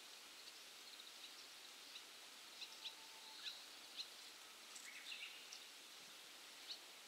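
Near silence: faint outdoor ambience by still water, with scattered short, high bird chirps in the distance.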